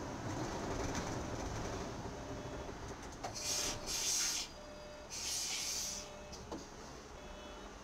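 City bus running, heard from the driver's seat: steady engine and road noise, with two sharp air hisses from the pneumatic brakes around the middle as it slows into a roundabout. A faint short beep repeats about every three quarters of a second.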